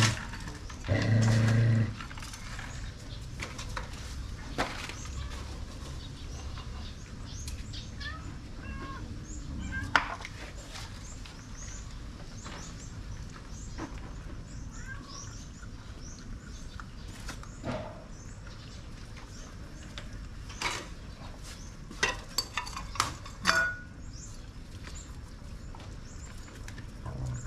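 Dogs eating: scattered clinks and clicks, like food bowls being knocked, with short high squeaks, over a low steady hum. A loud low sound about a second in; the sharpest clicks come about ten seconds in and again near the end.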